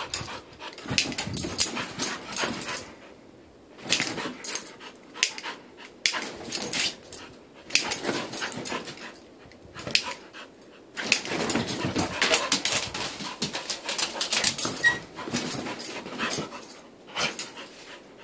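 A dog scuffling, snuffling and mouthing at a lighter held to its face, with short whimpers: the dog is afraid of lighters. The clicks and rustling come in spells with short pauses.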